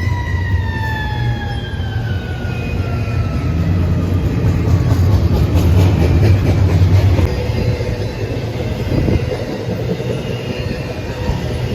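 Freight train passing: the locomotive horn sounds and drops in pitch as it goes by. Then the heavy rumble of the locomotives is loudest about six to seven seconds in, giving way to the steady rolling noise of the cars.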